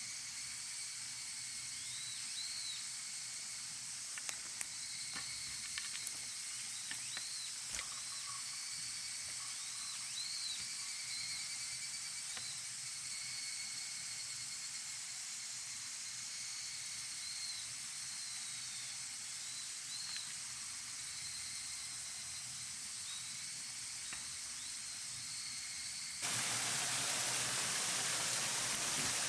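Mountain forest ambience: a steady high drone of cicadas with short chirping notes repeating throughout. About 26 seconds in, it cuts suddenly to a louder, even hiss.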